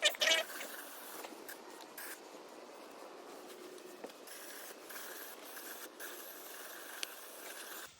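Faint scraping and hissing as a car's differential is cleaned out with brake cleaner to clear metal chunks from it, with scattered small clicks.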